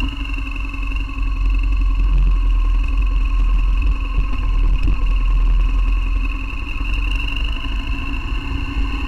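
BMW R1200GS flat-twin motorcycle engine running steadily at low riding speed, a constant deep rumble with a few steady engine tones above it, heard close up from the handlebars.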